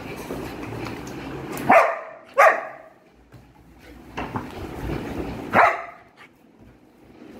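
Young German Shepherd barking three times, two barks in quick succession about two seconds in and a third a few seconds later, at its owner approaching in a mask.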